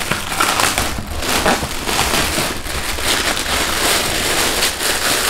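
Cardboard shoeboxes and paper packing crinkling and rustling as sneakers are handled and taken out, a dense run of crackles with small knocks.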